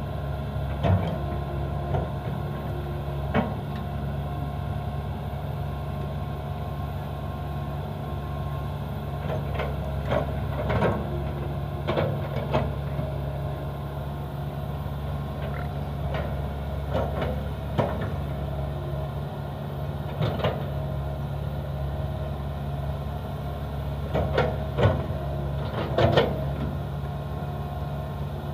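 Excavator's diesel engine running steadily, with scattered sharp knocks and clanks through it from the machine working.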